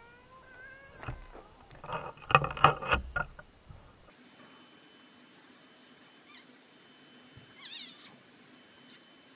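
Animal cries as a cat paws at a frog: a rising call, then a run of loud short cries from about two to three seconds in, which cut off abruptly just after four seconds. A faint short chirp follows near the end.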